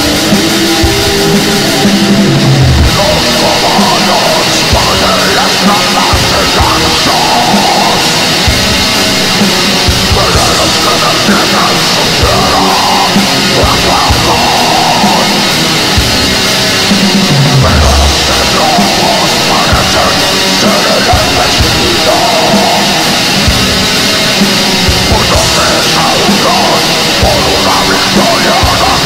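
Heavy metal recording: distorted guitars and a drum kit playing loudly and steadily, with vocals over most of it.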